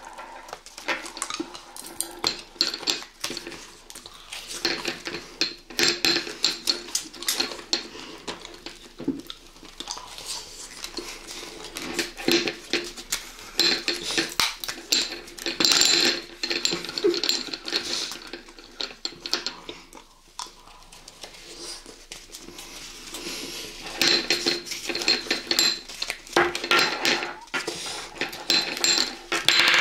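Many quick clinks and taps of tableware and food being handled, in busy stretches with a brief lull in the middle.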